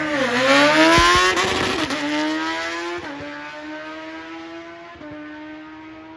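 Sport motorcycle launching off the drag-strip start line and accelerating away at full throttle: the engine note rises over the first two seconds, then dips briefly at each upshift about three and five seconds in, growing fainter as the bike runs down the track.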